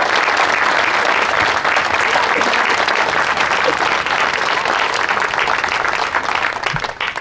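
Audience applauding, a steady crowd of hand claps that dies away near the end.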